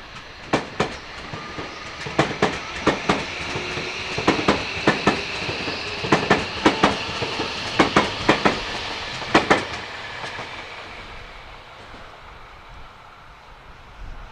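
Tobu Railway electric train passing, its wheels clicking over rail joints in quick pairs of beats over a high running whine. The clicking stops at about nine and a half seconds and the running sound fades away.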